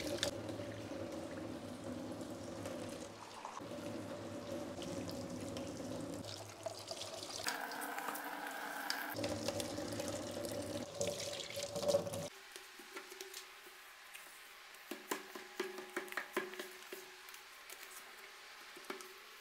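Tap water running and splashing into a stainless steel sink and across a wet countertop. The flow stops about twelve seconds in, leaving faint drips and light scattered ticks.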